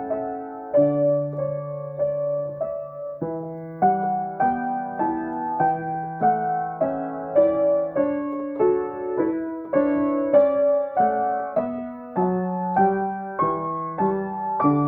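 Acoustic piano improvising slowly and gently: chords and melody notes struck about twice a second over longer-held bass notes.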